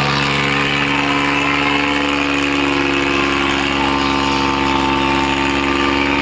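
Tractor diesel engine running steadily at a constant pitch, loud and close.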